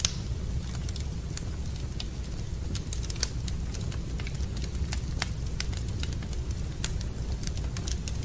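Wood fire crackling in a fireplace: irregular sharp pops and snaps over a steady low rumble, with a louder pop right at the start and another about three seconds in.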